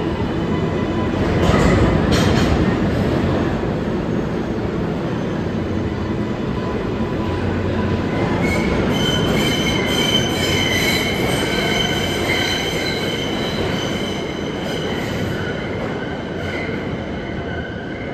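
Subway train running on the rails out of view: a rumbling clatter that swells about two seconds in, then thin, steady high-pitched wheel squeal from about nine seconds on, fading near the end.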